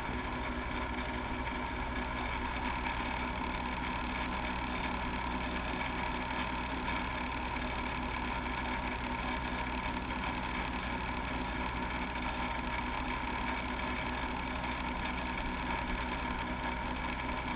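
Steady whirring hum of a small bench fan or blower running without change, with a few faint steady tones over it.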